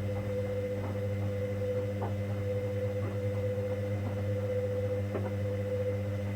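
Hoover Dynamic Next washing machine running its 90 °C cotton main wash: a steady motor hum with a constant whine, and a few faint knocks from the turning drum.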